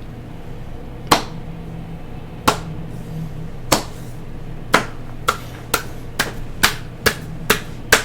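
A series of sharp knocks that speed up, from one every second or so to about two a second, over a steady low hum.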